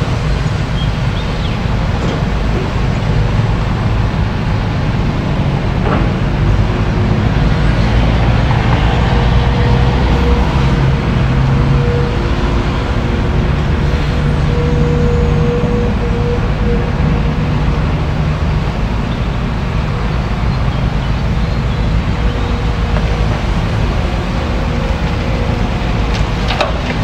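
Heavy diesel machinery, a working excavator, running steadily with its engine note shifting as it works, and a couple of brief knocks.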